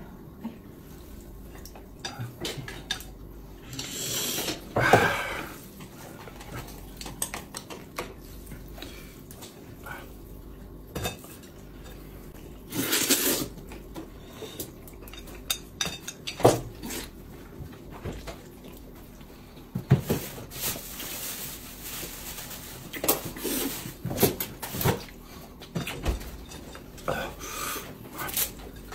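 Eating sounds: utensils clicking and scraping against dishes, in scattered short clicks with a few louder noisy bursts.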